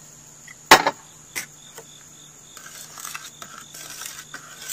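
A metal spoon stirring thick barbecue sauce in a metal mixing bowl, scraping and clicking against the bowl from about halfway through. A sharp knock comes just under a second in, with a smaller one a moment later.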